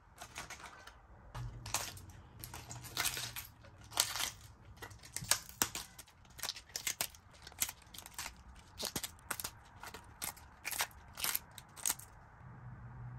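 Fresh green cabbage leaves torn into small pieces by hand: an irregular run of crisp snaps and rips as the leaves split, stopping about a second before the end.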